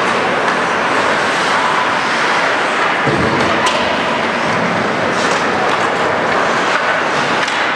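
Steady noisy ice hockey rink ambience during a game, with a faint knock about three seconds in.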